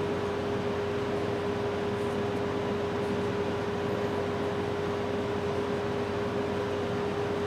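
A motor or fan running steadily: a constant hum with one clear mid-pitched tone over an even hiss.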